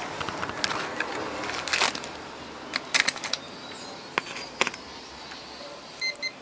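Small plastic clicks and handling rustle as a relay is turned in the fingers, then two short high beeps near the end from a multimeter's continuity tester as the probes touch the relay's pins. The beeping shows continuity across the relay's contacts, which are closed at rest.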